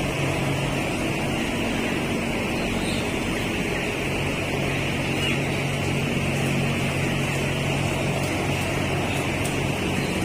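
Steady drone of a poultry house's large exhaust fans, with a dense, unbroken chorus of peeping from a crowded flock of 12-day-old broiler chicks over it.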